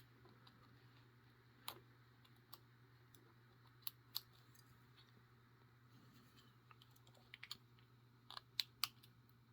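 Faint, scattered clicks of a lock pick and tension wrench working in the keyway of a Master Lock S31 lockout padlock, with a quick flurry of clicks near the end, over a faint low hum.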